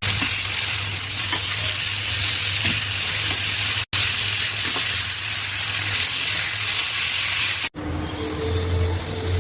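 Food sizzling as it fries in a hot pan, a steady loud hiss in several cut-together stretches. Near the end it switches to a lower sound with a couple of steady tones over a hum.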